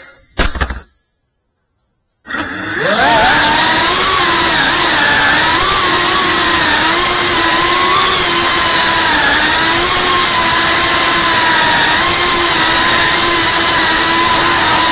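FPV drone's motors and propellers spool up about two seconds in, rising quickly in pitch, then buzz steadily with the pitch wavering up and down as the throttle changes.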